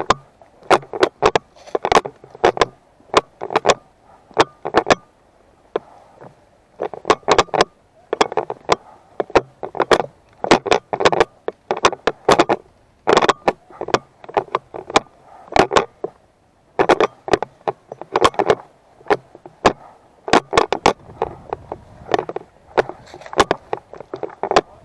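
A GoPro rattling in its loose base-plate mount: an irregular clatter of sharp plastic clicks and knocks, coming in clusters as the camera is jostled.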